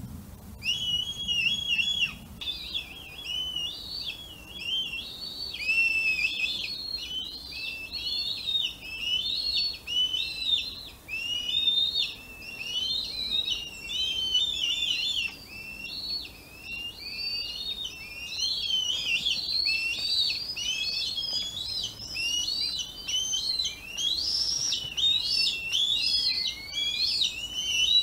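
Two red kite chicks calling for food: high, wavering whistled calls, overlapping and repeated almost without pause, starting about half a second in.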